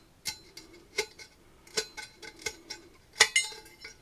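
X-Acto knife trimming cured epoxy drips from the rim of a metal tumbler: a run of sharp clicks at uneven intervals as the blade works around the edge. The loudest click comes a little past three seconds in, with a short metallic ring.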